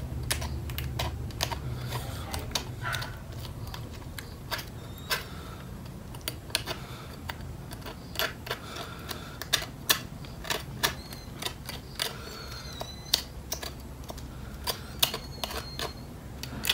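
Irregular sharp clicks and cracks of blue swimming crab shell being picked apart with a metal spoon and fingers and chewed, over a low steady rumble.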